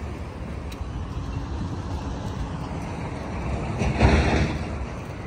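Steady low rumble of road traffic going by, with a brief louder rush of noise about four seconds in.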